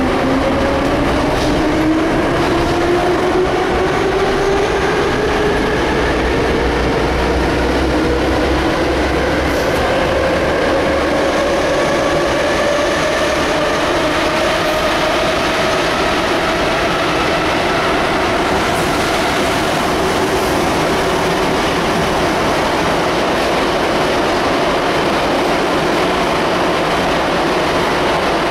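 Metro train heard from inside the carriage: a loud, steady rumble of wheels on the track, with the motors' whine rising in pitch as the train gathers speed over the first fifteen seconds or so, then holding steady.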